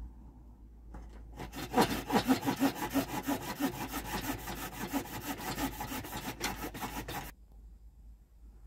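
Small hand saw cutting into a wooden hiking stick in quick, even back-and-forth strokes, about three to four a second. It starts about a second and a half in and stops abruptly about seven seconds in.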